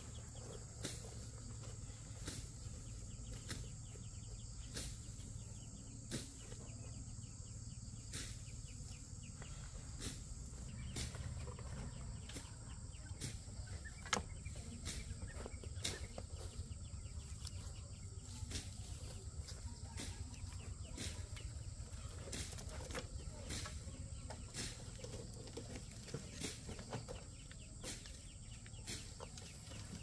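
Farmyard poultry calling, with many short clicks and taps scattered throughout.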